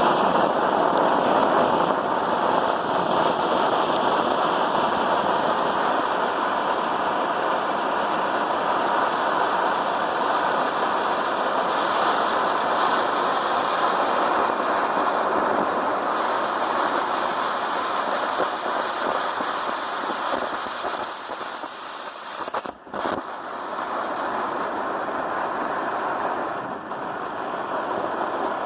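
Firework fountain spraying sparks with a steady, loud hiss, breaking off for a moment about 23 seconds in and then carrying on a little quieter.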